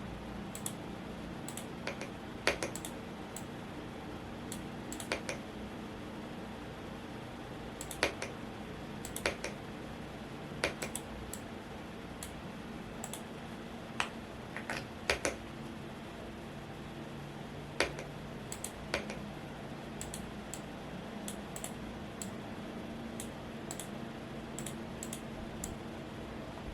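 Keystrokes on a Womier S-K71 mechanical keyboard, scattered and irregular, a few at a time with pauses between, over the steady hum of a fan.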